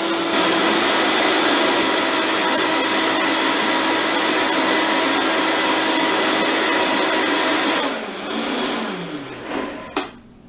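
High-powered countertop blender running at a steady high speed, churning a thick chickpea cheese mixture. About eight seconds in it is switched off and the motor winds down with a falling pitch, followed by a short knock near the end.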